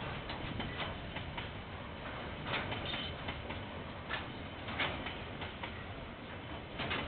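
Train rolling past, heard through a security camera's microphone: irregular sharp clicks and knocks over a steady low rumble.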